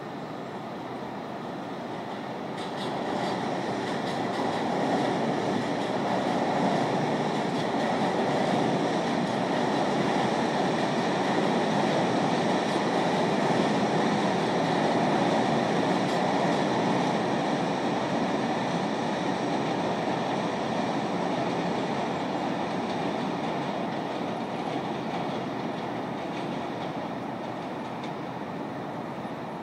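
A subway train crossing an elevated steel bridge. Its steady rumble swells a couple of seconds in, holds for about fifteen seconds and fades away near the end, over a constant hum of road traffic.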